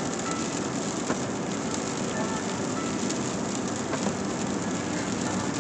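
Steady tyre and road noise heard from inside a moving vehicle's cabin on a wet road, with light rain on the windshield.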